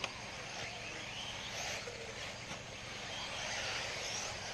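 Several 1/8-scale electric RC buggies running on a dirt track: high-pitched motor whines rising and falling as they speed up and slow down, over a steady noisy bed, with one short click right at the start.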